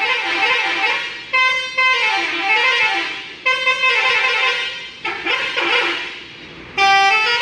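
A coach's multi-tone 'telolet' horn playing melodic phrases. Each phrase starts suddenly, and its notes step up and down in pitch. A new phrase comes every second or two, with a quieter lull shortly before the end.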